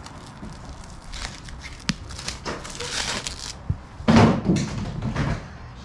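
Wrapping on a wingback chair rustling and crinkling as it is pulled and handled. There is a sharp click a little under two seconds in, and the loudest burst of handling noise comes about four seconds in.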